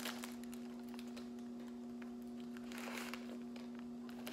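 Faint clicks and light rustles of a paper sandwich wrapper being handled, with a little more rustling about three seconds in, over a steady low hum.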